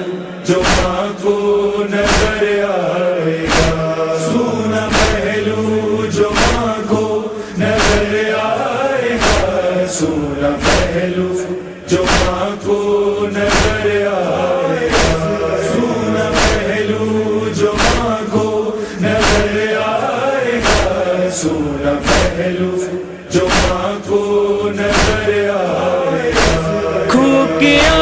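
Instrument-free noha interlude: voices chanting a slow, drawn-out refrain over a steady beat of sharp percussive hits, a little over one a second.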